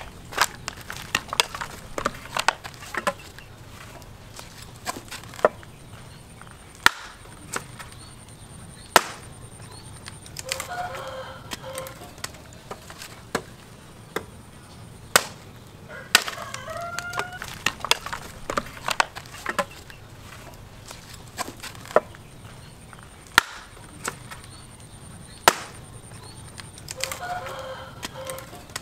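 Irregular sharp blows of an axe chopping into wood. A rooster crows three times, about a third of the way in, about halfway, and near the end.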